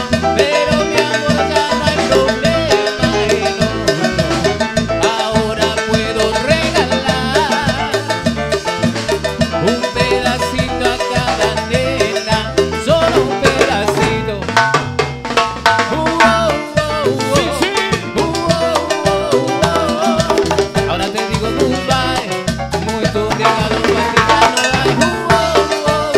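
Live band playing Latin dance music with a steady, even drum beat, with no clear singing.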